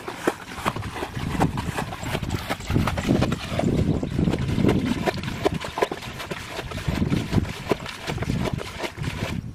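Water scooped and splashed with a bucket in a shallow muddy pool, as it is bailed out, with feet sloshing through the water; short knocks and rustles of steps run throughout.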